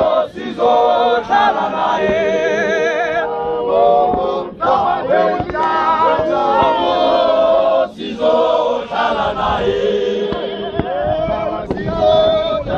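ZCC Mokhukhu men's group singing and chanting together without instruments, many male voices overlapping, with one voice holding a strongly wavering note about two to three seconds in.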